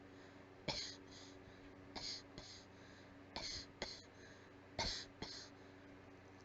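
A coughing fit of weak, breathy coughs: about six short, airy coughs, mostly in pairs, roughly one every second.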